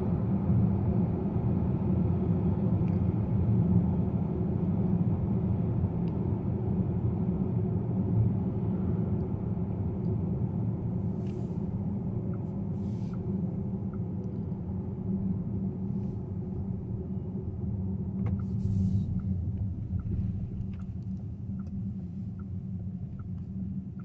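Cabin road and tyre rumble in a Volkswagen ID.4 GTX electric SUV slowing down from motorway speed: a steady low rumble that gradually gets quieter. Faint light ticks come in during the second half.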